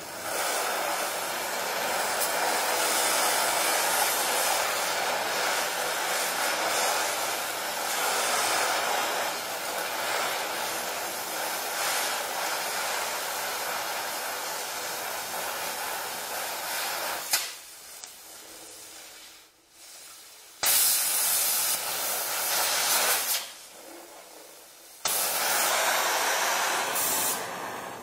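Donmet 132A micro gas welding torch flame hissing steadily while welding a steel pipe. The hiss falls away twice for a few seconds in the last third, just after a sharp click, and comes back each time.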